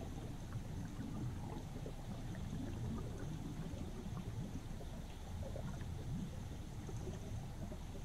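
Flowing river water heard from underwater: a steady low rumbling churn with soft gurgles.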